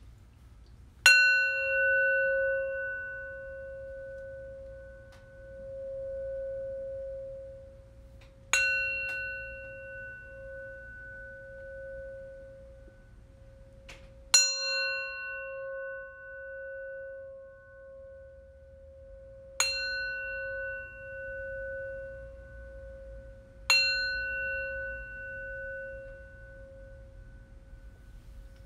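Metal singing bowl struck five times, several seconds apart, the first strike the loudest. Each strike rings out with several high overtones over a low hum that wavers slowly and carries on between strikes.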